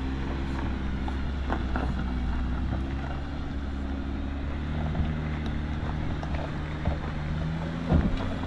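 Ram ProMaster van's engine running at low speed as it crawls over a rough dirt road, with occasional knocks and rattles from the bumps, the loudest one near the end.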